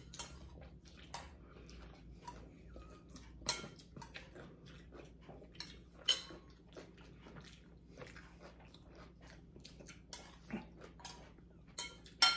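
Two people eating noodle soup: slurping and chewing, with utensils clicking and clinking against ceramic bowls many times, the sharpest clinks about three and a half seconds in, about six seconds in, and near the end.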